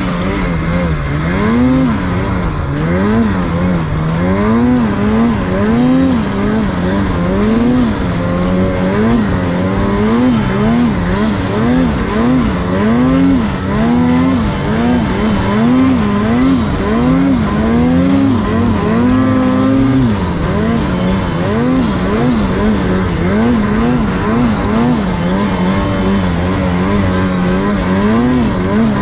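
Turbocharged two-stroke engine of a Ski-Doo Summit mountain snowmobile, revving up and down over and over, about once a second, as the throttle is worked through deep powder. Near 20 s it holds a higher steady pitch for a moment before dropping.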